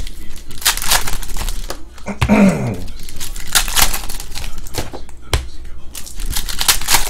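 Foil wrapper of a Panini Contenders baseball card pack crinkling and tearing as it is ripped open by hand, in repeated crisp crackles. A little over two seconds in, a short voice-like sound falls in pitch.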